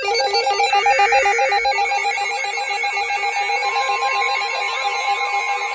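NOAA Weather Radio emergency alert: the last buzzy SAME digital header burst, then the steady 1050 Hz warning alert tone starting a little past halfway. A fast repeating synth melody plays underneath throughout.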